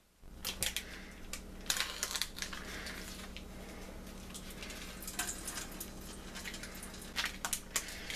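Plastic tofu package handled on a plastic cutting board: scattered short crinkles and light knocks over a steady low hum.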